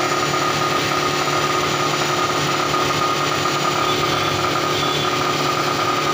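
A machine running steadily nearby: a constant mechanical drone with a high, steady whine running through it.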